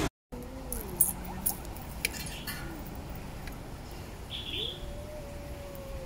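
Small kitten crying: a short falling cry near the start, then about four and a half seconds in a long thin cry that rises and holds steady to the end. A brief high chirp comes just before the long cry.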